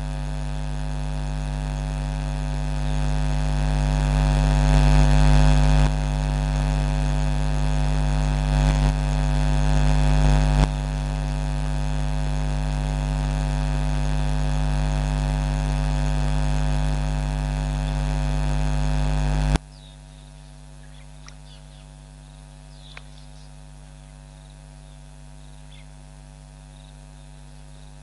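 Electrical mains hum in the camera's audio feed: a loud, steady buzz with many overtones that swells and steps in level. About two-thirds of the way in it drops suddenly to a much fainter hum, and a few faint short ticks follow.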